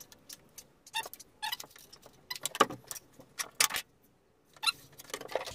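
Irregular clicks and light knocks of a steel tape measure and pencil being handled and set down on a plywood sheet, a few of the clicks with a faint metallic ring.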